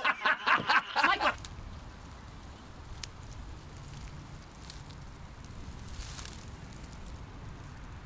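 A man's voice for about the first second, then faint outdoor ambience: a low steady rumble with a single faint click and a brief soft hiss later on.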